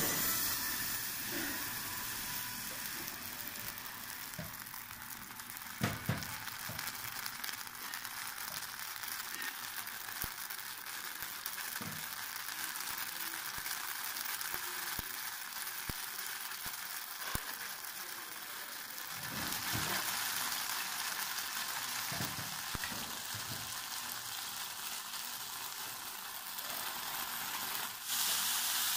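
Thin water-and-oil tuile batter sizzling steadily in a hot non-stick frying pan, its water boiling off in bubbles as the lacy wafer sets. A few short knocks, the clearest about six seconds in.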